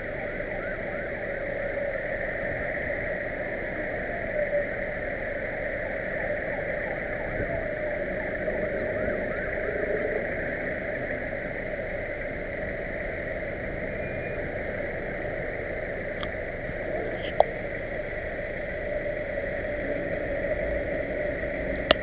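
Steady hum and hiss inside a car, picked up by a dashcam's microphone, with one sharp click near the end.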